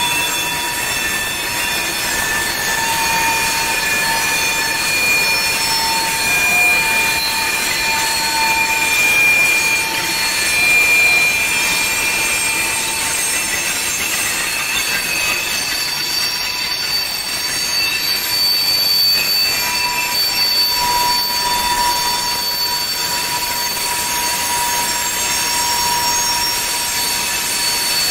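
Freight cars of a long mixed freight train rolling past on a curve, the wheel flanges squealing in several steady high-pitched tones that fade and come back over the continuous noise of the wheels on the rails.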